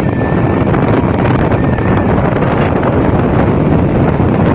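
Strong wind buffeting the microphone, with faint steady whistle tones from a set of tuned kite flutes (sáo diều) showing through now and then in the first two seconds.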